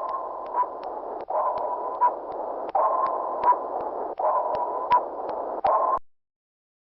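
Submarine sonar sound effect: five pings near 1 kHz, about one and a half seconds apart, each starting loud and fading into hiss, with sharp clicks between them. It cuts off suddenly about six seconds in.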